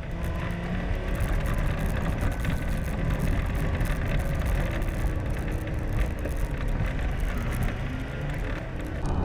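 Land Rover Defender TD5 driving over a rough gravel track: a steady low rumble with frequent knocks and rattles from the bumpy ground.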